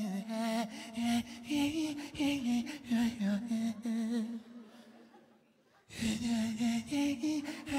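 A man humming a wordless melody into a microphone in short stepping notes, over a beat of short clicks. It fades out to near silence a little past halfway for about a second and a half, then starts again.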